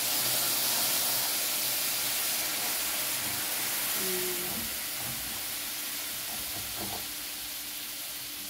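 Hot caramel sizzling and hissing in a frying pan as hot water is poured in slowly and boils up into steam. The hiss eases slightly toward the end.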